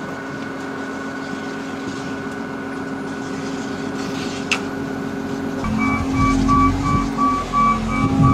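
Wheel loader's diesel engine running with a steady hum. A little over two-thirds of the way in the engine grows louder and a repeating reversing beeper starts.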